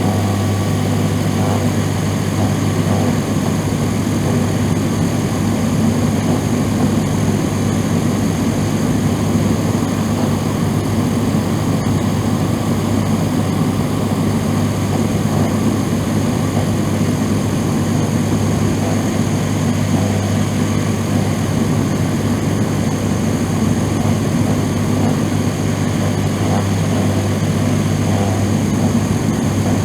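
Bathroom exhaust fan running steadily: a low motor hum with whooshing airflow and a faint high whine.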